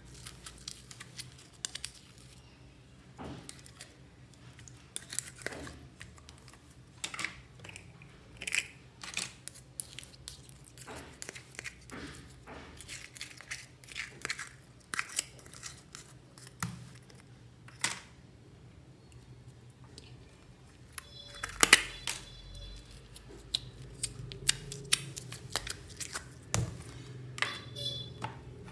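Slime being mixed and squished by hand, with irregular sticky clicks and crackling pops; one louder squelch comes a little past two-thirds of the way through.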